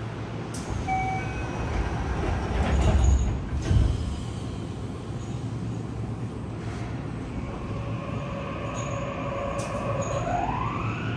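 Yokohama Municipal Subway 3000S train at the platform: a short door chime about a second in, then the sliding doors shutting with two loud knocks around three and four seconds in. Near the end the Mitsubishi IGBT-VVVF inverter starts up with a steady tone that then glides upward as the train begins to move.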